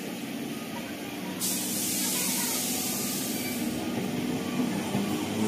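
Electric multiple-unit local train standing with a steady low hum. About a second and a half in, a sudden loud hiss of released compressed air sets in, lasts about two seconds, then eases but keeps on faintly.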